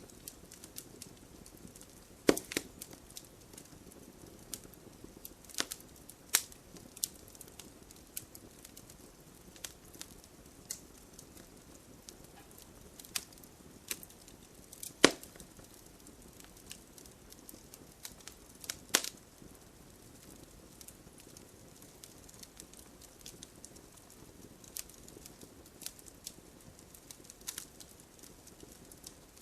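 Wood fire of burning logs crackling, with irregular sharp pops and snaps over a low steady hiss; the loudest pops come a little over two seconds in, around the middle and a few seconds later.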